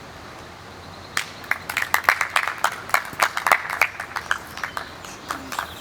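A few people clapping, starting about a second in and running for about four seconds, densest in the middle.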